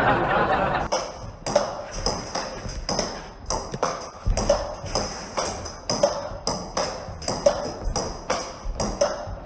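Table tennis rally: the celluloid-type ball clicking sharply off the racket and bouncing on the table, a few clicks a second in an even rhythm. A loud burst of noise cuts off about a second in.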